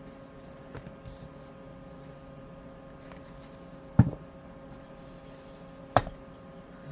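Two sharp knocks about two seconds apart, with a few faint clicks before them, over a steady low electrical hum.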